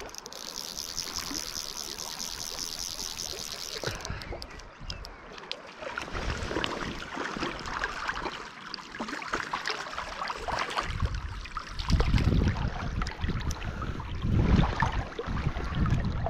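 A fly reel's click ratchet rattles rapidly as line is wound in for about the first four seconds. Then river water rushes and splashes close by as a brown trout is drawn in and taken in hand, with low rumbling buffets in the last few seconds.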